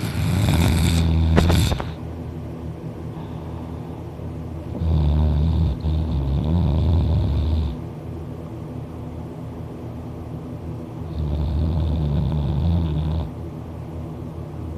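A person snoring loudly while sleeping open-mouthed on their back: three long, low snores about five seconds apart, the first with a harsher rasp.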